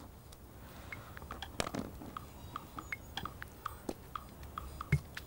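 Light, irregular clicking and tapping, several small knocks a second, as an Egyptian vulture moves about on rock handling a hen's egg.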